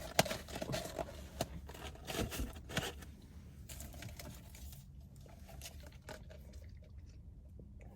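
Paper or plastic food wrapping rustling and crinkling as it is handled, busiest in the first three seconds, then thinning to a few faint crackles.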